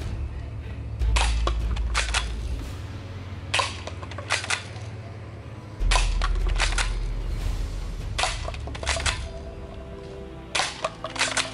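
Toy minigun firing at plastic cups in about five short bursts of sharp snapping shots, a couple of seconds apart.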